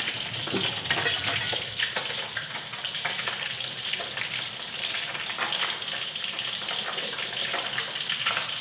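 Pieces of sea fish frying in hot cooking oil in a wok: a steady sizzle with frequent spitting pops, a flurry of them about a second in.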